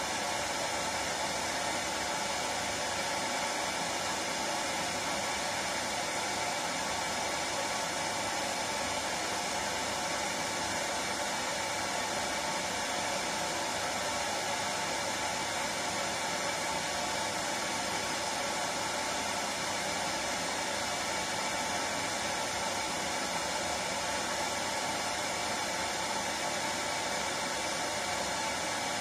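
Hair dryer running steadily: a constant, even rush of air and motor noise.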